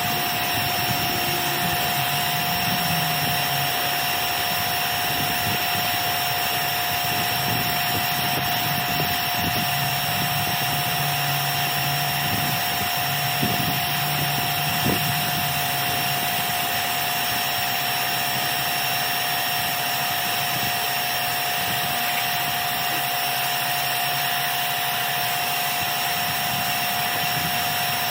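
Pressure washer running steadily: a constant motor whine over a spray hiss.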